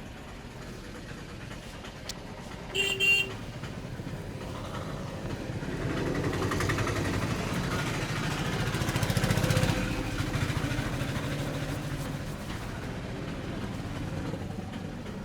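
Road traffic: a vehicle horn toots once, briefly, about three seconds in. Then a motor vehicle's engine passes close by, growing louder to a peak about two thirds of the way through and fading away.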